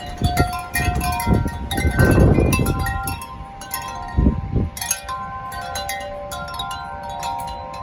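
Wind chimes being struck rapidly and repeatedly by strong wind, with many overlapping ringing tones sustaining into one another. Gusts of wind rumble on the microphone, loudest about two seconds in and again briefly a couple of seconds later.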